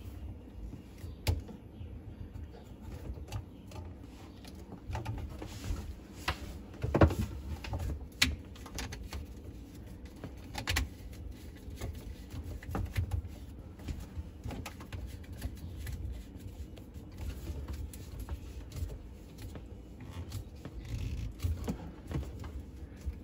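Plastic drain pipe fittings being handled and tightened under a sink: scattered clicks, knocks and rubbing of plastic parts and slip nuts, with the sharpest knocks about seven seconds in.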